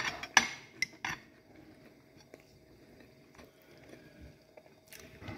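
Metal spoon clinking and scraping against a plate: four quick clicks at the start, then a few more clicks near the end.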